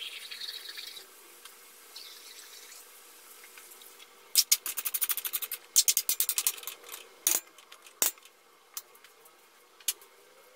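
Metal spatula stirring chicken and carrots in an aluminium wok: a quick run of scraping taps against the pan for about two and a half seconds, then a few single clinks. A brief sizzling hiss comes at the start.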